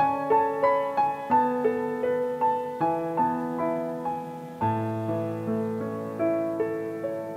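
Background music: a piano playing a quick run of notes, about three a second. About halfway through, a low bass note comes in and the music grows gradually softer.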